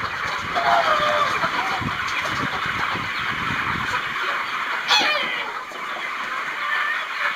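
A large flock of young Boris Brown chickens peeping and chirping together in a dense, steady chorus as they are herded. There are low knocks in the first few seconds, and one louder falling call about five seconds in.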